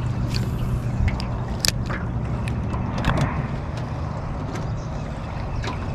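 A steady low engine hum with scattered sharp clicks and knocks.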